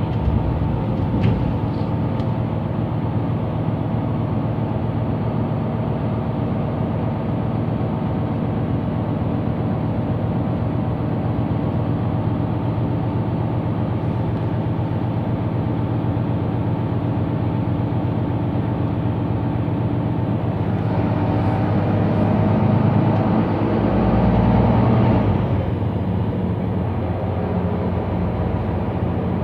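Diesel engine of a Mercedes-Benz Citaro C2 Euro 6 city bus running with a steady drone, heard inside the passenger cabin. Near the end it grows louder for a few seconds, then settles back.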